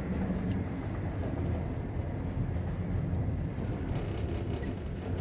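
Steady low rumble of the Indian Pacific passenger train running, heard from inside the carriage, with a few faint ticks.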